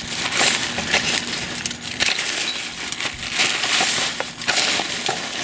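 Trash in a dumpster being dug through by hand: continuous rustling, crunching and crinkling of bags, boxes and packaging, with irregular small knocks.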